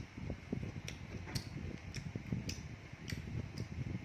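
A person chewing a mouthful of food, with sharp wet mouth clicks and smacks at irregular intervals, about one every half second to a second.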